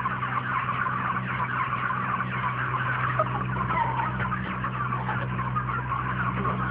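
A crowded flock of intensively reared broiler chickens peeping and chirping, many calls overlapping into a dense chatter, over a steady low hum.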